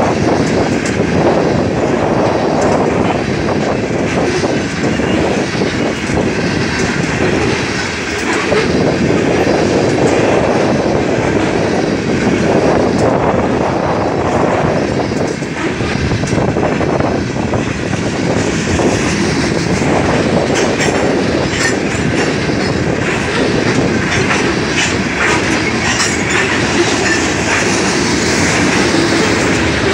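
Covered hopper cars of a BNSF grain train rolling past: a steady loud rumble, with the clickety-clack of steel wheels over the rail joints and crossing.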